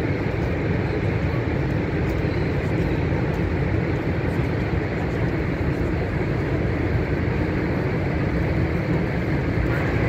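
Steady, even low rumble aboard a tour boat under way in churning river water below the falls, the boat's running noise and rushing water blending together without a break.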